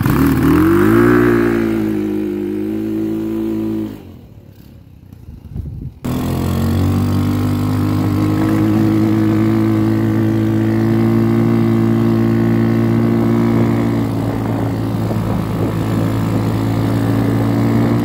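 Tao Tao Arrow 200 go-kart's single-cylinder four-stroke engine revving as the kart pulls away, then running steadily at speed while it drives through snow. There is a short, much quieter break about four seconds in.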